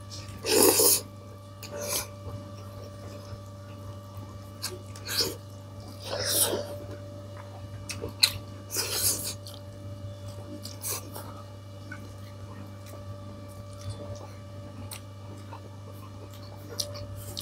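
Eating noises from a person at a meal: a handful of short, hissing slurps and mouth sounds at irregular times, mostly in the first half, over a steady low hum.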